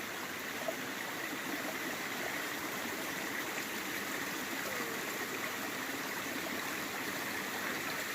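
Mountain creek water running over rocks and small falls: a steady, even rush of water.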